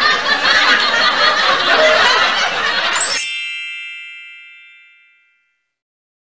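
Men laughing, cut off about three seconds in by a bright chime that rings out and fades over about two seconds, then silence.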